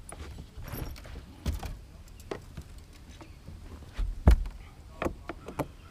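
Scattered knocks and clicks of handling on a bass boat's deck, with one loud, deep thump about four seconds in.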